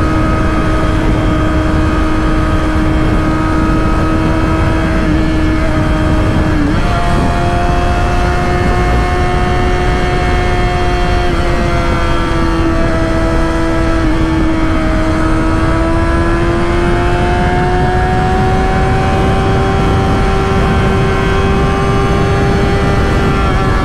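2005 Kawasaki ZX-6R inline-four motorcycle engine running at steady highway cruising speed under a constant wind rush. The engine note dips and jumps to a higher pitch about seven seconds in, then drifts slowly up and down with the throttle.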